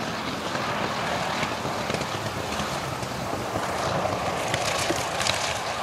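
Curtiss P-40N's Allison V-1710 V12 engine running at low power as the fighter lands and rolls out on the grass runway, a steady rumbling drone with no sharp changes.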